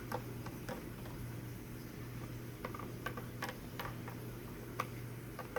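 Plastic toy figurines tapped along a hard surface as they are walked: about ten irregular light clicks, over a faint steady low hum.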